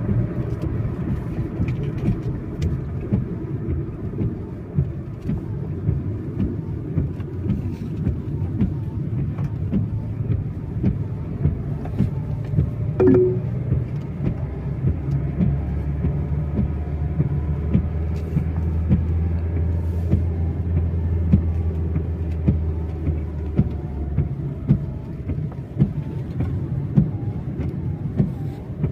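Car driving in heavy rain: a steady engine and road rumble with many quick sharp taps scattered through it, and a short higher tone about halfway.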